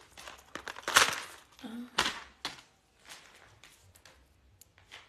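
A cardboard jewelry backing card and necklace being handled: a few loud rustles and scrapes of card stock, the loudest about a second in, then lighter ticks and clicks.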